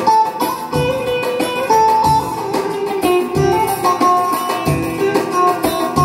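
Live Turkish folk dance music from an electronic keyboard: a plucked-string lead melody in a saz-like voice over a steady bass and drum beat, with no singing.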